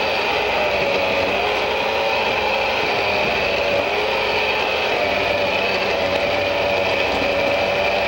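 Large commercial immersion blender running steadily while it purees chunky marinara sauce in a pot. The motor gives a steady high whine over a slightly wavering lower hum.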